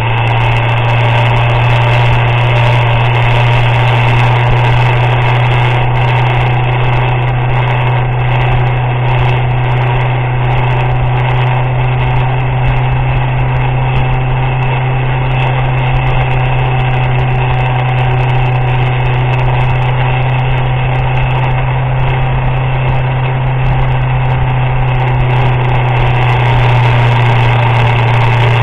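Motorcycle engine running at a steady pitch during a ride, a strong unchanging low hum that holds for the whole stretch.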